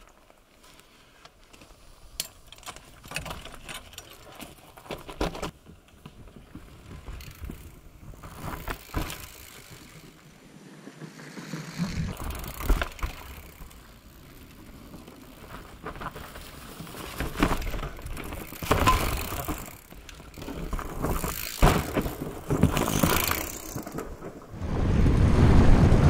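A fatbike being handled and ridden: scattered clicks, knocks and rattles, then near the end a loud low rumble of wind on the microphone and tyres on the trail as the ride begins.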